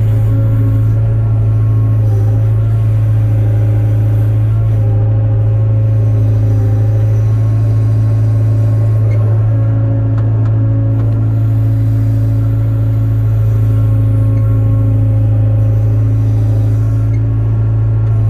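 Hyundai 02-class excavator's diesel engine running at a steady speed, a constant low hum with a few steady tones above it that swell and fade slightly.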